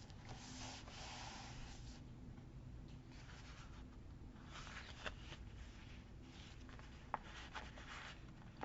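Faint rustling of paper and sticker sheets being handled on a desk, with a few light taps.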